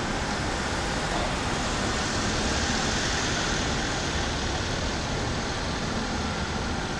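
Steady road traffic noise, swelling slightly near the middle as a vehicle goes past.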